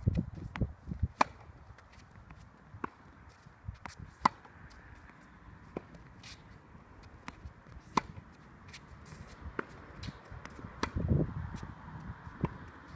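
Tennis ball struck by a racket and bouncing on a hard court: sharp pops every second or few, irregularly spaced, the loudest about a second in, at about four seconds and at about eight seconds. Footsteps scuff on the court surface between shots.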